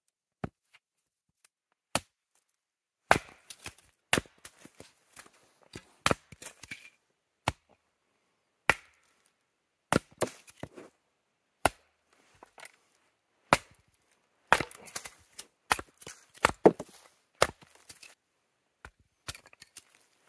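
Hatchet splitting kindling on a wooden chopping block: a string of sharp, irregular chops, some a second or two apart and some in quick runs, with the split pieces rattling after a few strokes.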